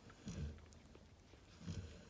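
Cane Corso snoring: two low, rumbling snoring breaths about a second and a quarter apart.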